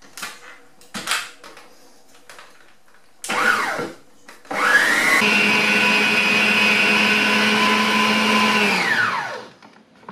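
Costway stand mixer's motor whisking cake batter, after a few light handling clicks: a brief start about three seconds in that spins down, then it starts again, speeds up and runs steadily for about four seconds before winding down near the end.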